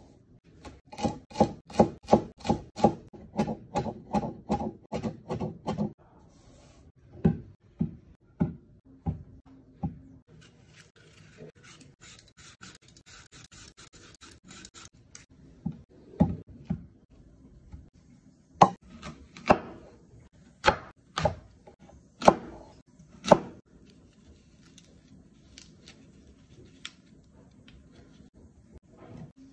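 A kitchen knife chopping fast on a wooden cutting board, three to four strokes a second, for several seconds. Then a vegetable peeler scrapes rapidly across an apple's skin. Later come a few single loud knocks as a large knife cuts through apples into the board.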